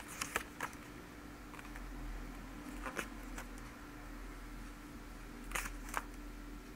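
Pages of an art book being turned by hand: short paper swishes and rustles in three clusters, near the start, about three seconds in and near the end, over a faint steady hum.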